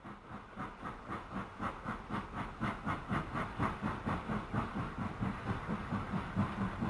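Model train running past close by, with an even rhythmic beat of about three to four pulses a second that grows louder as it approaches.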